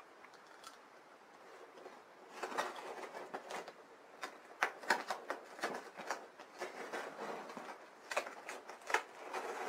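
Hands working at a taped cardboard box: irregular scrapes, rustles and taps of cardboard and tape, starting about two seconds in.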